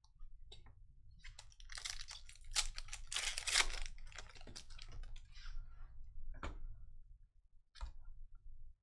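Foil trading-card pack wrapper crinkling and being torn open: a dense crackle of crinkles for a few seconds, then two single sharp clicks later on.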